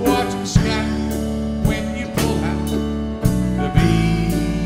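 Small live band playing a country-gospel tune on electric bass, acoustic guitar and drums, with a steady beat of drum hits.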